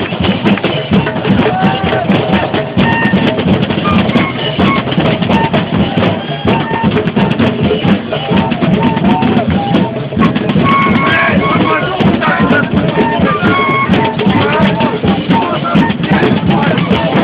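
Protesters beating drums and other percussion in a loud, continuous, dense rhythm, with voices and short pitched tones mixed in.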